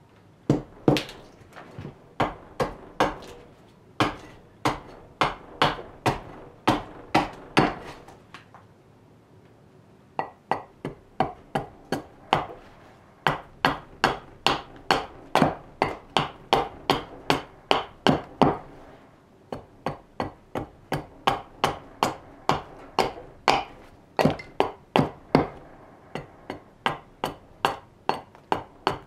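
Raw birch block being struck again and again with a steel edge tool as it is roughed out: sharp, knocking wooden strikes about two a second, in three runs broken by two short pauses.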